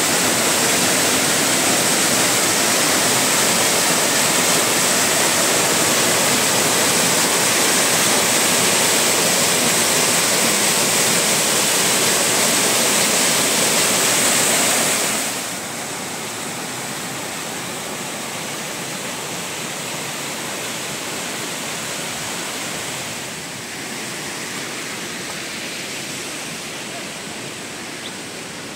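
Steady, loud rush of water, like heavy rain or a torrent. It drops suddenly to a quieter rush about halfway through and dips a little again near the end.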